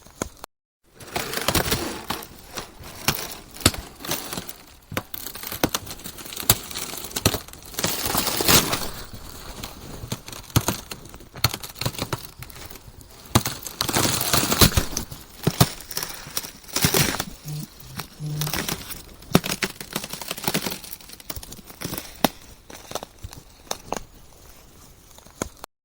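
Ice cracking and crunching in a dense run of sharp cracks and crackles, with louder bursts every second or two. A brief silent break about half a second in.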